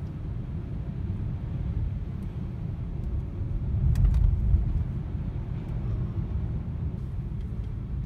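Steady low road rumble of a moving car, heard from inside the cabin as it drives along a wet, snowy highway. The rumble swells briefly about halfway through.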